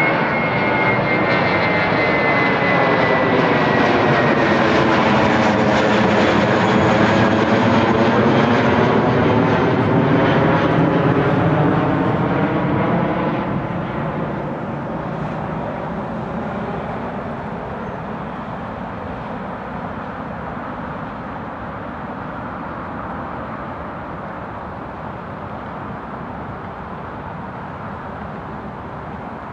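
Airbus A320-232's two IAE V2500 turbofan engines at climb power as the jet passes overhead: a loud jet rumble with a high whine that slides slightly lower in pitch over the first few seconds and a sweeping, phasing sound as it goes over. About thirteen seconds in it begins to fade steadily as the aircraft climbs away.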